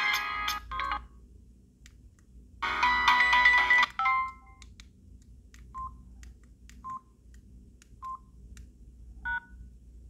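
Samsung SGH-D600 mobile phone playing polyphonic ringtone snippets through its small speaker: one ends about a second in, and another plays for about a second and a half near the start. Then come single short key beeps about once a second, a two-note beep near the end, and faint clicks in between.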